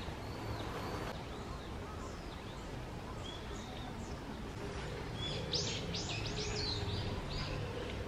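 Birds calling over a low steady hum: a few short, arched, high chirps at the start, then a quick run of louder high chirps past the middle.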